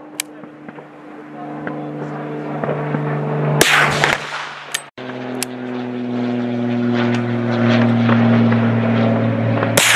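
Two shots from a BSA Martini .310 Cadet single-shot rifle, one about a third of the way in and one near the end, each followed by a short echo. Beneath them a steady engine drone grows louder.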